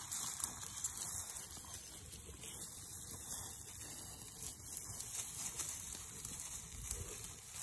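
Faint rustling and scattered light steps through dry grass and brush, over a steady hiss.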